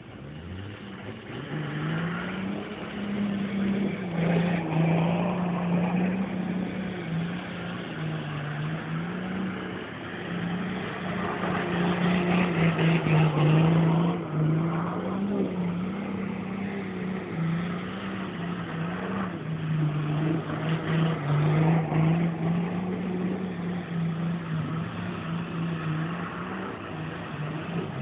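Nissan GQ short-wheelbase Patrol's engine revving up and dropping back again and again as it spins donuts, with its tyres churning and spraying through muddy water.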